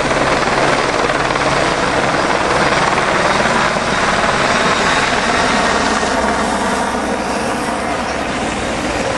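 Helicopter flying overhead: its rotor and engine make a steady rushing noise with a low hum underneath.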